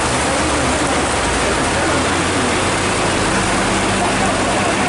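Heavy rain pouring down on a flooded road, a loud steady hiss of water. A vehicle engine runs low beneath it through the middle stretch.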